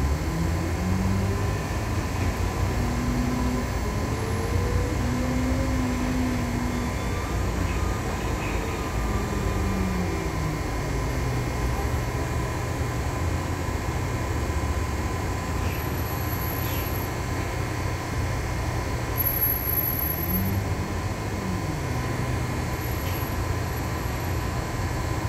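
Inside a LiAZ-6213.22 articulated bus under way: the diesel engine and road noise rumble steadily. The engine's pitch climbs through the first few seconds as the bus pulls away, holds, then falls off about ten seconds in, with another short rise and fall near the end.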